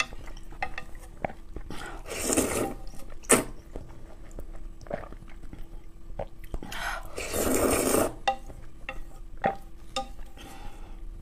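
Noodles being slurped from a bowl of broth in two noisy bursts, a short one about two seconds in and a longer one about seven seconds in. Between them, small clicks of wooden chopsticks against the bowl.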